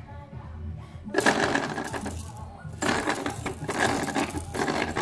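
A plastic ride-on baby toy being handled, rattling and clattering in two bursts: one about a second in, a longer one from about three seconds in.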